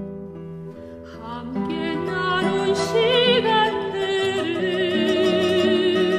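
Music: a classical soprano sings with wide vibrato over plucked guitar accompaniment. The voice comes in about a second and a half in, after a few bars of guitar alone.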